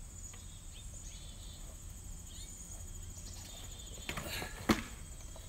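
A heavy piece of maple timber shifting and scraping against a stack of tires, ending in one sharp wooden knock a little after four seconds in. A steady high insect drone runs underneath.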